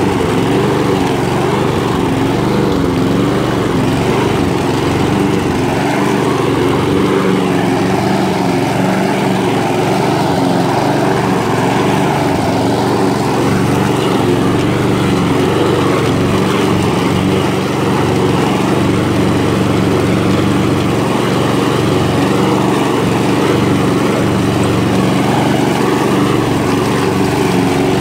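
Walk-behind rotary lawn mower's small engine running steadily while mowing grass.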